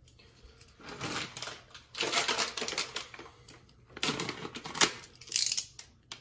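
Plastic packet of tiger nuts crinkling and rustling as it is handled, in several bursts, with one sharp click a little before the end.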